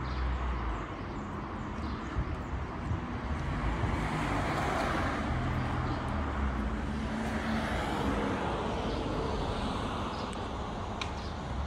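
Road traffic passing, a hum and rushing noise that swells about four seconds in and again around eight seconds before easing off.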